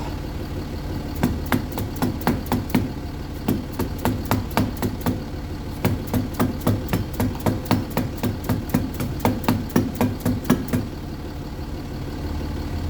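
Repeated hammer taps driving a new front wheel hub into place on a Jaguar XF, about three a second, stopping near the end. A car engine idles steadily underneath.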